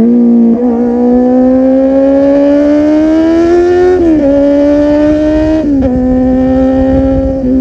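Kawasaki Z800's inline-four engine running through an aftermarket full-system exhaust while riding. The revs climb slowly for a few seconds, then fall sharply at gear changes about four seconds in and again near six seconds.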